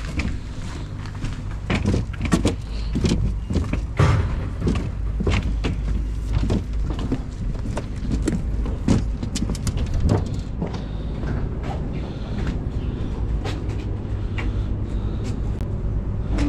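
An engine's low steady hum, with frequent sharp knocks and clicks over it.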